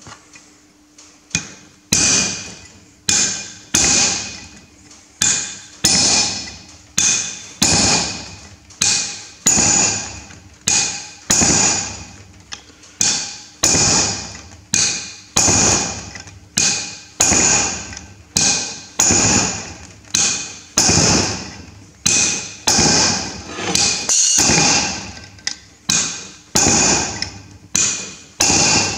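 Steady hammer blows, about one and a half a second, driving a cold chisel into the welded-on bearing locking collar of a Massey Ferguson 135 rear axle shaft. Each strike rings metallically as the chisel works to split the collar along drilled holes.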